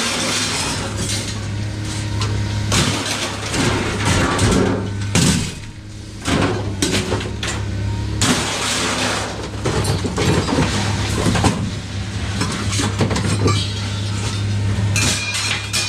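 Irregular metallic clanking and clattering, like scrap metal being handled and dropped, over a steady low engine hum.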